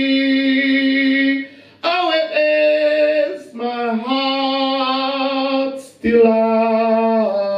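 A man singing an unaccompanied folk song into a handheld microphone, with no instruments. He draws out long held notes in four phrases, with short breaths between them and the pitch stepping between notes.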